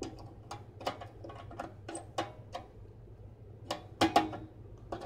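Irregular clicks and knocks as a replacement glass sterilizer tube is fitted into its end holders, the loudest pair about four seconds in, over a steady low hum.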